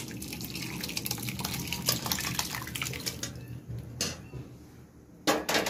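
Curdled milk, chhena with its whey, is poured from a steel pot onto a cotton straining cloth, splashing and trickling for about three and a half seconds. A knock follows about four seconds in, then a couple of louder knocks near the end.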